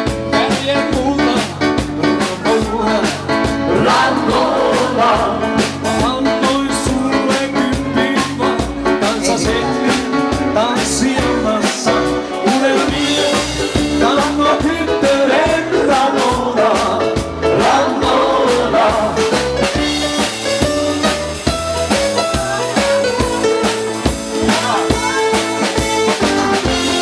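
Live band playing a medley of 1980s pop songs: singers over keyboard and drum kit with a steady beat, amplified through a PA.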